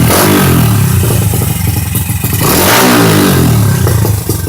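Honda XRM125 underbone motorcycle's single-cylinder four-stroke engine, a 57 big-valve build on stock stroke running race gas, revved hard twice: the pitch climbs and drops back, once in the first half and again in the second.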